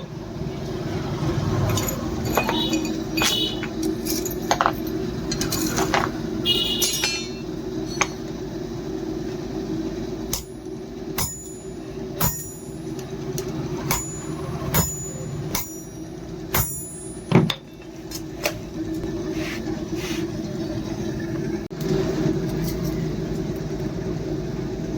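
Irregular hammer blows on steel, each leaving a short high metallic ring, most of them in a run through the middle, over a steady low hum.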